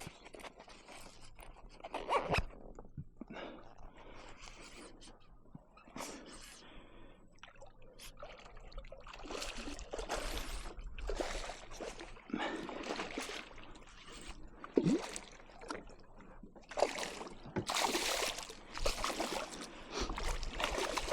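Water splashing and swishing around a kayak in irregular bursts. They get louder and come about once a second through the second half, with one sharp splash about fifteen seconds in.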